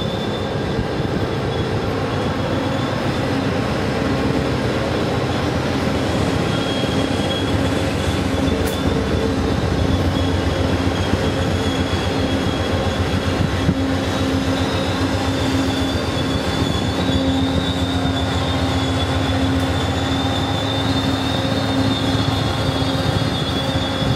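Amtrak passenger train's cars rolling past on curved track: a steady rumble with a low hum, and a thin, wavering wheel squeal high above it that comes and goes.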